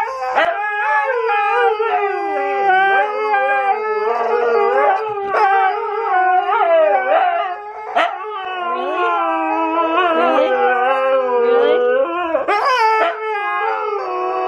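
Siberian huskies howling together, several long wavering howls that overlap and glide up and down in pitch without a pause. This is the huskies' 'singing' on cue while waiting for their dinner.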